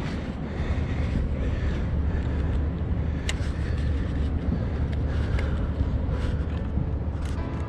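Steady low outdoor rumble, with a few sharp clicks about three, five and seven seconds in.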